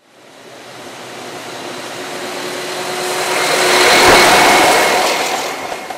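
A motor vehicle passing by, growing louder to a peak about four seconds in and then fading away.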